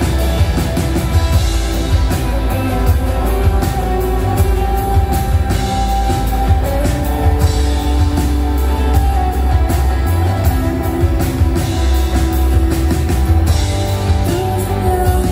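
Live rock band playing through a PA: guitars, bass guitar and drum kit, with regular drum hits and cymbal crashes.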